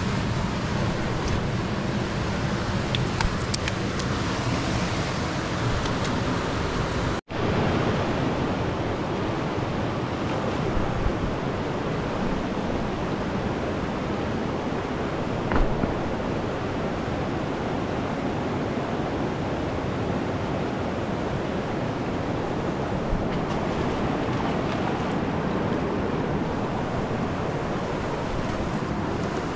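Fast river water rushing steadily, with a momentary dropout about seven seconds in.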